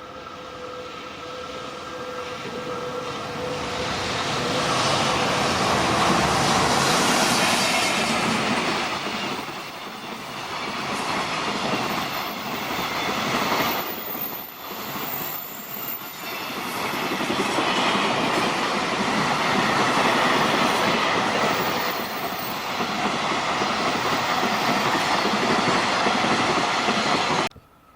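JR Freight train passing close by: wheels and wagons rumbling over the rails. The sound builds over the first few seconds, stays loud with a few brief dips, and cuts off suddenly near the end.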